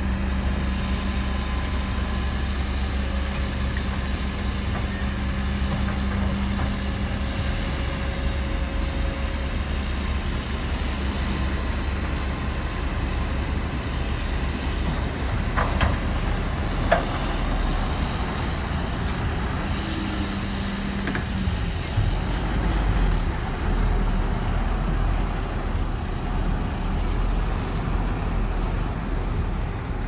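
Diesel engines of heavy earthmoving machines running steadily, a deep rumble with a held engine tone that drops away about two-thirds of the way through. Two short sharp knocks, about a second apart, a little past halfway.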